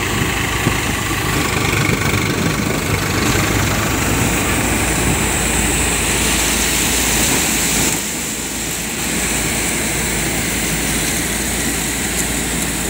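Sonalika DI-740 diesel tractor running steadily at working speed, driving a Samrat thresher whose drum and belt drive whir as it threshes green mustard; the level dips slightly about eight seconds in.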